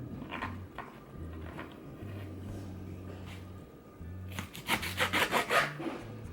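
Knife cutting vegetables on a cutting board: a few single cuts, then a quick run of about ten chops about four and a half seconds in.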